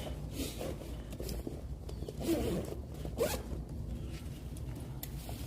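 A zip being pulled in several short, sharp strokes, as equipment is got out of a bag or case, over a steady low hum.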